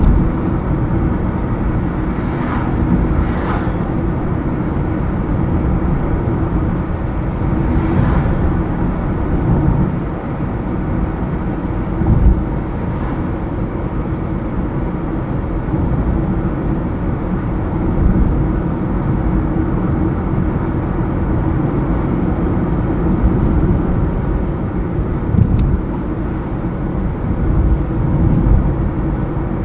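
Car driving along a highway: steady engine and tyre road noise, with a few brief bumps and passing swells.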